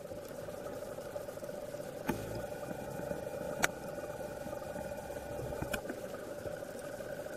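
Underwater sound, a steady droning hum with a few faint higher tones, broken by three sharp clicks about two, three and a half, and five and a half seconds in.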